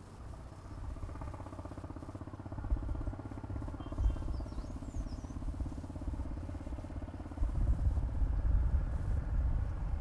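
A motor vehicle's engine running in the background as a steady pulsing hum, growing louder over the last couple of seconds. A few faint, high bird chirps come in about four to five seconds in.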